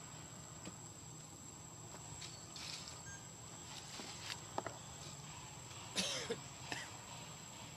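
Quiet outdoor ambience with a steady high-pitched insect drone, a few scattered soft clicks, and a short cough-like sound with a falling pitch about six seconds in.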